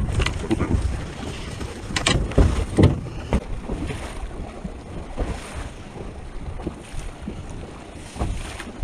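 Wind buffeting the microphone over a boat on open water, with a few knocks, a cluster of them about two to three seconds in and one more near the end.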